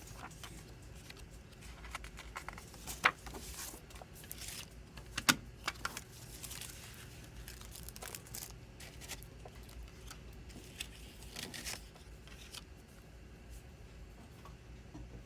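Hands handling a CD single's packaging: rustling and scattered clicks of plastic and paper. The two sharpest clicks come about three and five seconds in.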